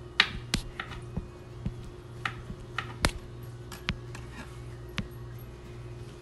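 Irregular sharp taps and clicks, about a dozen spread unevenly over a few seconds, some with a brief scratchy rasp, over a steady low hum.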